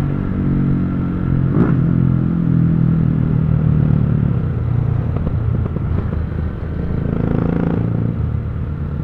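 Motorcycle engines running while under way on the road, a steady engine note whose pitch shifts about four seconds in.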